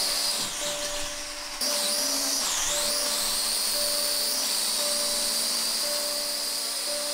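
Small toy quadcopter's propellers and motors whining high and steady as it hovers. The whine dips about a second in, then swoops down and back up near three seconds as the throttle changes.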